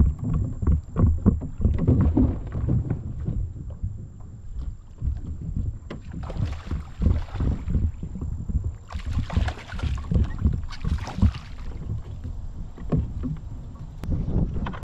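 A fishing kayak moving on river water, with uneven low knocks and rumble from the water and from wind on the microphone. Three short bursts of splashy hiss come in the second half.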